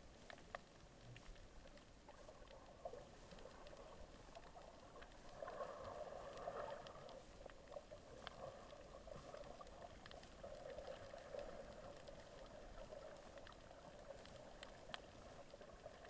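Faint, muffled water movement heard underwater, swelling twice, with scattered sharp clicks.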